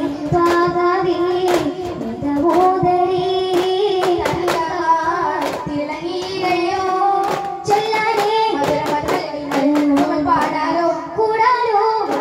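Daff muttu: a group of boys singing a melody together while striking hand-held frame drums (daf) in a steady beat of sharp strikes.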